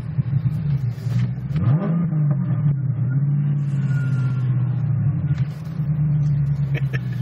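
426 Hemi V8 in a Dodge Challenger, heard from inside the cabin, running steadily at low speed with a brief rise in revs about two seconds in.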